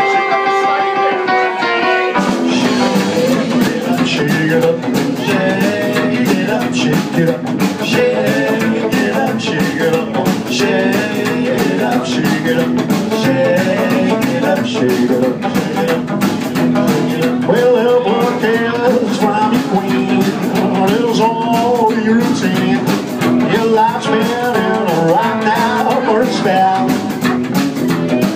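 Live band playing: a held electric guitar chord rings, then about two seconds in the drum kit and upright bass come in with a steady beat under electric guitar and a man singing.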